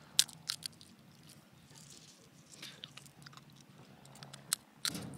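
Someone chewing and biting close to the microphone: scattered crisp crunches and clicks, the loudest just after the start and a couple more near the end.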